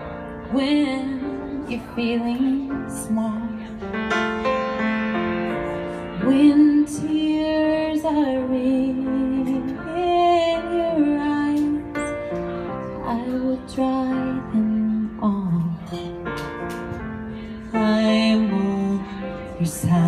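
A woman singing a ballad live into a microphone, accompanying herself on a grand piano, her voice gliding between and holding long notes over the piano chords.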